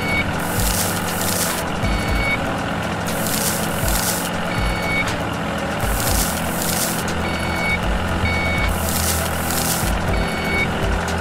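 A vehicle's steady engine hum with short, high reversing-alarm beeps every one to three seconds, two of them close together near the end, and recurring bursts of hiss.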